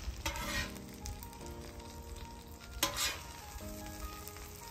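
Metal spatula scraping as salmon fillets are lifted off a flat-top griddle onto a serving board, two short scrapes about a third of a second in and again just under three seconds in, over butter sizzling on the hot griddle. Soft background music with held chords plays underneath.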